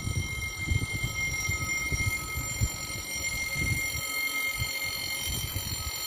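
Level-crossing warning bell ringing steadily while the barrier arms lower, then cutting off suddenly as they come down, with wind buffeting the microphone.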